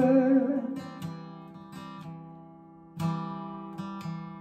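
Acoustic guitar strumming a few chords between sung lines, each chord left to ring and fade, the loudest about three seconds in. A held sung note trails off within the first second.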